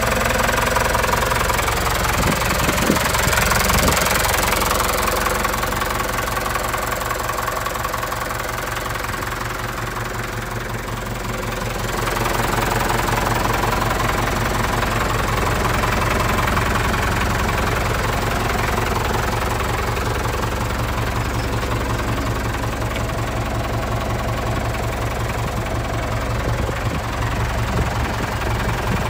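Mitsubishi Canter truck engine idling steadily with an even, knocking clatter, heard from beneath the truck; it drops slightly in level for a few seconds partway through, then picks back up.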